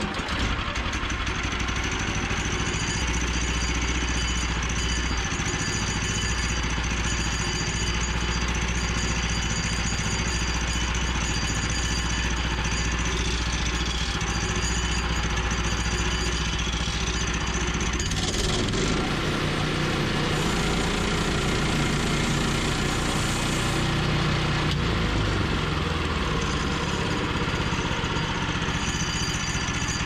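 Woodland Mills portable bandsaw mill running under load, its band blade sawing lengthwise through an alder log. The machine noise is steady, and its tone changes about 18 seconds in.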